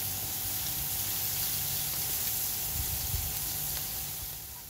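Beef burger patties and bacon sizzling on a hot Blackstone flat-top griddle: a steady frying hiss that fades near the end.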